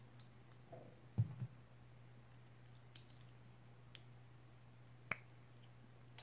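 Small hard-plastic clicks of Playmobil figure parts being pressed and snapped together, legs and arms fitted onto the torso: a few separate clicks, the loudest a close pair about a second in. A low steady hum runs underneath.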